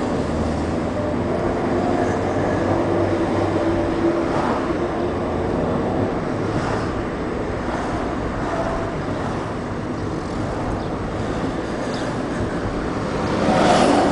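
Road and engine noise heard from inside a moving car in traffic: a steady low rumble with a faint engine hum, swelling into a louder rush near the end.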